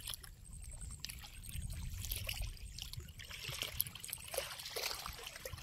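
Faint lakeshore ambience: a steady low wind rumble on the microphone with light lapping of small waves.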